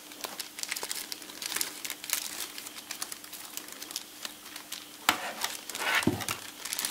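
Clear plastic bag crinkling as it is handled and snipped open with scissors, with a louder rustle about five seconds in.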